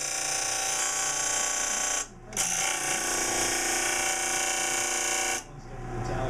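Electric power tool motor running with a steady whine. It cuts out for a moment about two seconds in, starts again, and stops about five seconds in.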